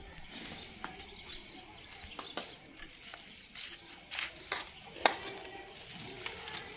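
Hands mixing food in a large metal pot, with scattered clinks and knocks of the pot and steel bowls; the sharpest knock comes about five seconds in.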